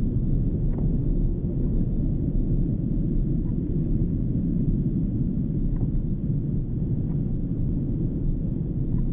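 Jet airliner engines giving a steady low rumble, with a few faint short chirps over it.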